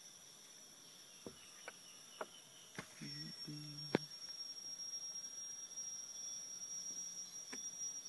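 Steady high-pitched drone of rainforest insects, with a few sharp clicks in the first half, the loudest about four seconds in.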